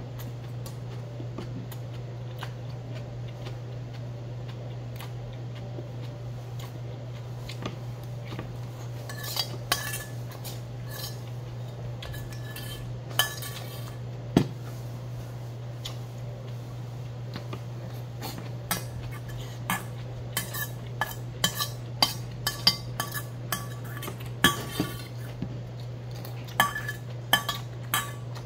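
Metal spoon scraping and clinking against a tilted stainless-steel bowl, each clink with a short ring. The clinks are sparse at first and come thick and fast in the second half as the bowl is scraped clean. A steady low hum runs underneath.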